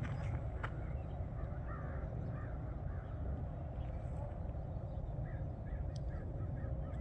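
Birds calling in the distance, a string of short harsh calls in two bursts, over a steady low rumble.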